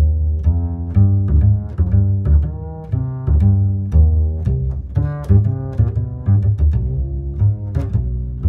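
Background music: a low-pitched melody of short, separate notes, several a second, each starting sharply.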